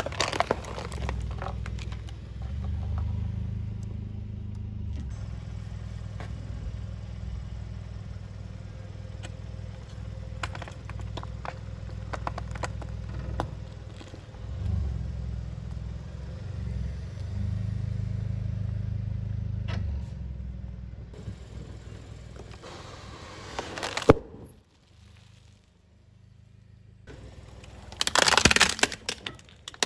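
A car creeping forward with a low engine rumble as its tyre rolls over and crushes objects, with scattered crunches and cracks. There is one loud sharp crack about two-thirds of the way through, then a short quiet spell, and a burst of plastic cracking near the end as a plastic toy tractor is crushed under the tyre.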